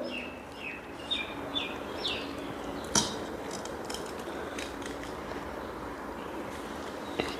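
Quiet tableware handling during a meal eaten by hand: a sharp clink of a dish about three seconds in and a fainter one near the end. Small birds chirp in the background during the first couple of seconds.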